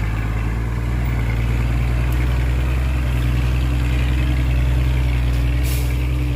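Heavy construction vehicle's diesel engine idling steadily with a low, even hum, with a short hiss near the end.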